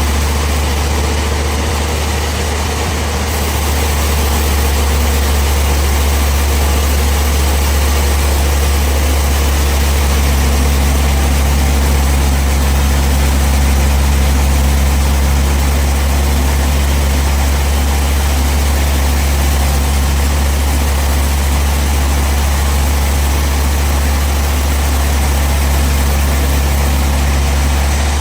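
Bandsaw sawmill machinery running steadily, with a strong low hum.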